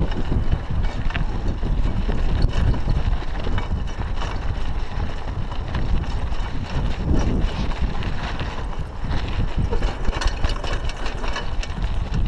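Raleigh Ascent mountain bike rolling along a sandy dirt road: a steady rumble of the tyres and the moving bike, with frequent small clicks and rattles over the bumps.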